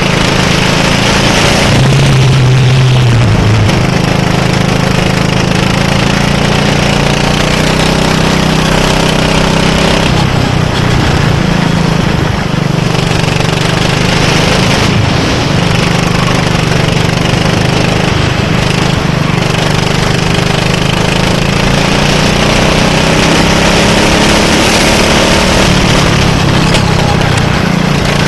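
Go-kart engine running hard under the driver, heard from on board, its pitch slowly rising as the kart speeds up along the straights and falling back as it slows for the corners.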